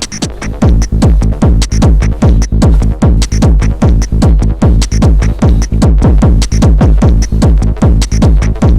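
Techno pattern played on a Korg ESX groovebox, run through a compressor-limiter. A fast, even run of short notes, each dropping quickly in pitch, sits over a heavy low bass that comes in just under a second in, when the whole level jumps up.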